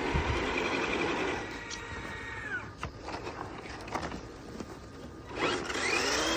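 Radio-controlled truck's electric motor and gears whirring as it drives in snow, the whine sliding down in pitch about two and a half seconds in, with a few clicks after. Near the end a high-pitched voice squeals.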